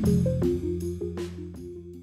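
Outro music with a steady beat, fading out.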